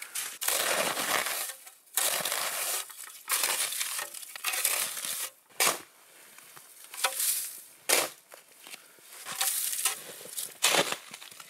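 Deep, dry snow crunching and packing down in irregular bursts as a person wades and pushes through it: a dozen or so uneven steps and shoves, some long and some short and sharp.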